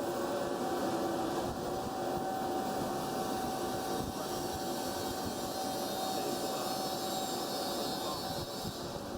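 BTA deep hole drilling machine running: a steady machine hum with several constant whining tones over a hiss.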